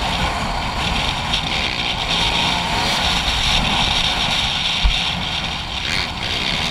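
Dirt bike engine running steadily while riding, heard from the bike itself. A short low thump about five seconds in.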